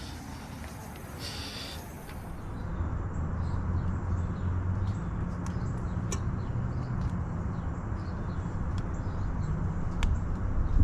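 Mitsubishi mini split heat pump's outdoor unit running in heat mode: a low hum comes up about three seconds in and then holds steady, with a few sharp ticks through it. Before that, the tail of another outdoor heat pump clip is heard.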